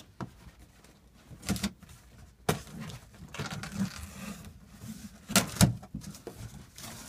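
A cardboard box being cut open by hand: a blade scraping through packing tape and the flaps being pulled back, with rustling and several sharp cracks and knocks of cardboard, the loudest pair coming late.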